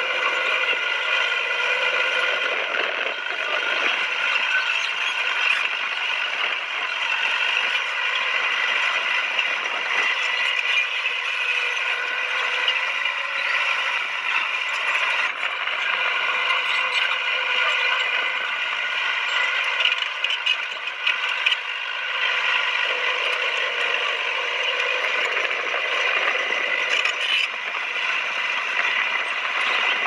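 Crawler bulldozer working: its diesel engine runs steadily under the metallic clatter and squeak of its steel tracks, with a few sharper clanks about two-thirds of the way through.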